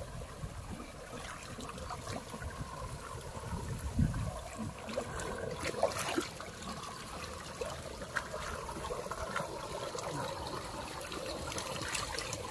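Shallow creek water trickling and splashing, with scattered small clicks and a dull thump about four seconds in.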